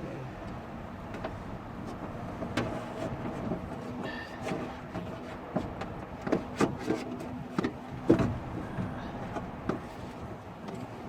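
Electric window motor of a Citroen Xsara Picasso door running, driving the glass on a newly fitted window regulator: a steady hum that stops about eight seconds in, with scattered clicks and knocks.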